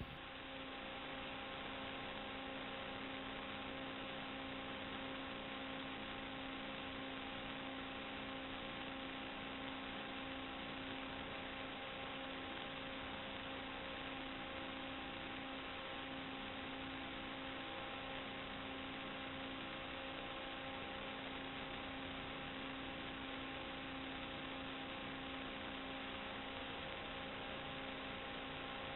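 Steady electrical hiss and hum, several unchanging tones over even static, from the audio track of an FPV video-receiver DVR recording.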